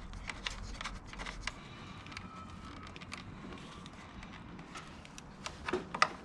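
Scattered light clicks and taps of small metal and plastic parts being handled while a nut is spun onto a turn-signal stalk by hand, with a few sharper clicks near the end.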